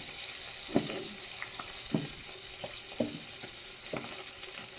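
Fish frying in hot oil, a steady sizzle, with short scraping strokes about once a second from a potato being peeled.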